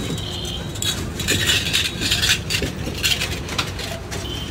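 Stainless-steel kulfi moulds clinking and rattling against one another as they are picked out of a crate full of them by hand, in quick irregular clinks.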